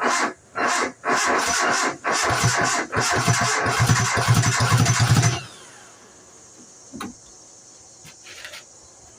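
1990 Nissan D21 pickup's four-cylinder engine cranking on the starter in several short bursts, then cranking longer while it fires unevenly without catching, and stopping about five seconds in. The owner takes it to be out of time (fuel and spark are there), suspecting the timing chain is off by about half a tooth after the timing chain was replaced.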